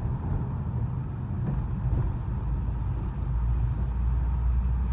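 Car cabin noise while driving: a steady low rumble of engine and road, heavier from about three seconds in.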